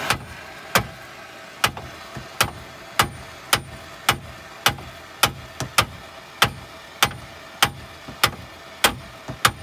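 Hammer blows on steel at a fairly even beat of roughly two a second, each with a short ring. They are knocking at a steering joint whose tapered stud is being heated red-hot with an oxy-acetylene torch to break it loose, and the torch's steady hiss sits underneath.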